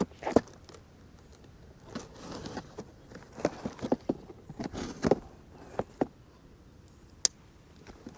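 A cardboard shipping box and its packaging being handled and opened, with scattered knocks, clicks and short rustles.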